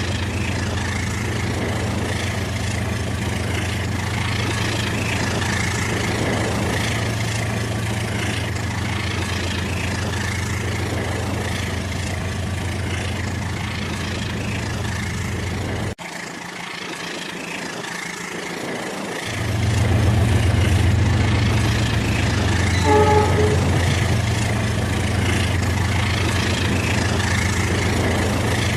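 Rail King battery-powered toy train running, a steady motor hum with a fast rattling rhythm. Just past the middle the hum drops out for about three seconds, then comes back louder. A brief pitched tone sounds about two-thirds of the way through.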